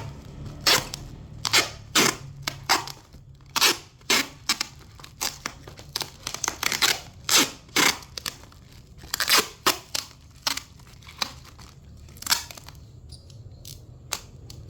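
Parcel being packed by hand: repeated short, irregular crinkling and tearing strokes of plastic wrap and packing tape, about one or two a second.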